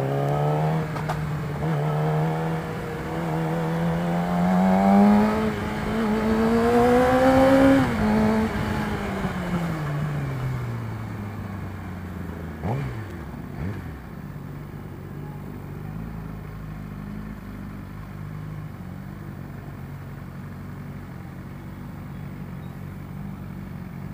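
Yamaha R6 inline-four with an Akrapovic exhaust, accelerating with its pitch climbing for about eight seconds, then rolling off as the revs fall. A brief, sharp falling sound comes about halfway through. The engine then settles to a steady idle.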